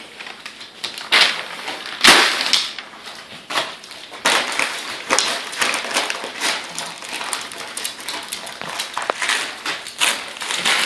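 Dogs tearing and crinkling gift wrapping paper off presents: a run of irregular rips and rustles, the loudest about two seconds in.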